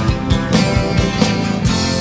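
Rock band music without vocals: strummed guitar over a drum beat.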